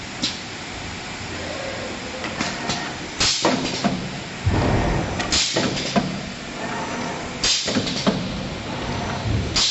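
Automatic wire star-frame machine for spider strainers running through its cycle: clicking and clunking of the wire feed and indexing fixture, with a short sharp hiss about every two seconds and a heavy low thud twice.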